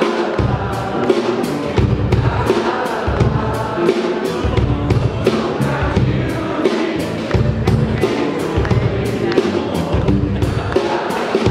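Live blues band playing: a Dannecker Centurion Lex diatonic harmonica played cupped against the microphone, over electric bass guitar and a steady drumbeat.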